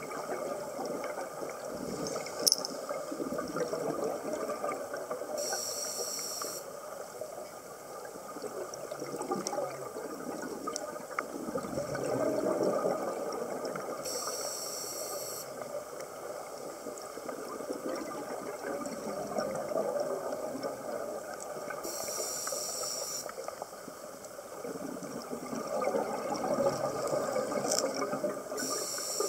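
Scuba breathing heard underwater through a regulator: a short hiss of inhalation about every eight seconds, four times, with bubbling exhalations and a steady watery rumble between them. A single sharp click comes about two and a half seconds in.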